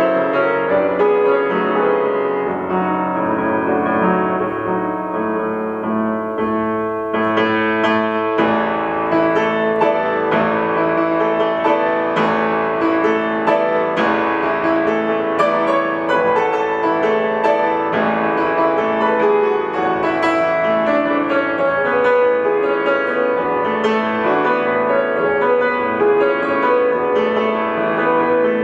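Solo classical music played on a concert grand piano: continuous dense chords and runs, with brighter high notes coming in about seven seconds in.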